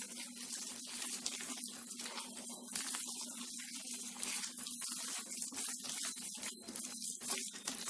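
Hands mixing and squishing a sticky dough of grated pumpkin, jaggery and wheat flour in a bowl, an irregular, stop-start wet mixing noise. A steady low hum runs underneath.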